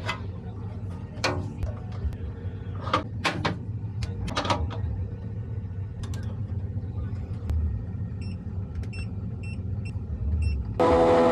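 Low steady hum with scattered handling clicks and knocks, then a run of about six short high electronic beeps a little past the middle, and a loud steady buzzing tone that starts near the end.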